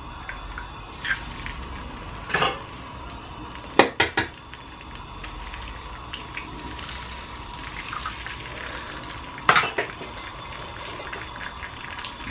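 Eggs cracked against the rim of a non-stick frying pan: sharp taps of shell on the pan's edge, a quick run of them about two to four seconds in and another loud tap near nine and a half seconds, over a faint steady hiss.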